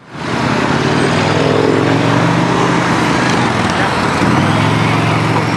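Busy road traffic with vehicle engines accelerating past; the engine pitch climbs twice, over a steady rush of tyre noise.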